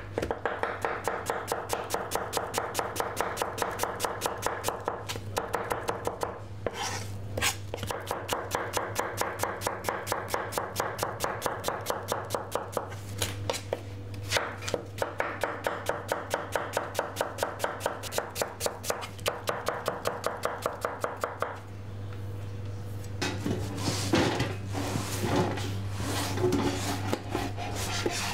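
Kitchen knife rapidly slicing onions on a plastic cutting board, a fast even run of strokes with a few short pauses. Near the end the strokes stop and the sliced onion is scraped and pushed together across the board.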